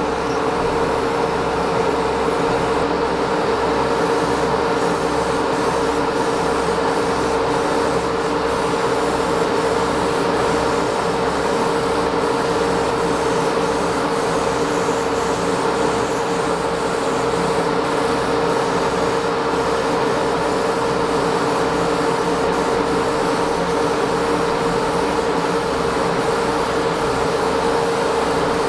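Steady hum of an electric motor in an airbrush spray-booth setup: one strong, even tone over a low throb that pulses regularly.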